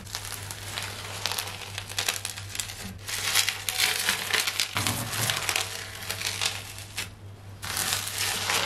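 A hand squishing and pressing into a bathtub of foamy, bubble-filled homemade glue slime, with dense crackling as the bubbles pop and the dried top crust breaks; it pauses briefly about seven seconds in.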